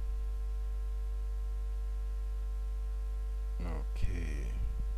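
Steady low electrical hum, like mains hum on the recording, with a brief wordless murmur of a man's voice about three and a half seconds in.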